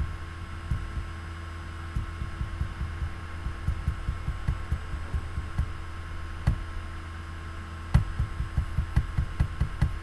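Steady low electrical hum from the recording, with frequent irregular soft low thumps and two sharper clicks, about six and a half and eight seconds in.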